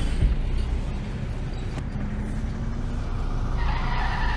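Steady low rumble of a car driving in road traffic, with a higher hiss joining near the end.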